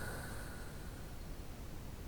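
A sleeping person's quiet breathing in the pause between snores: a faint, even hiss, with a thin high tone fading out in the first second.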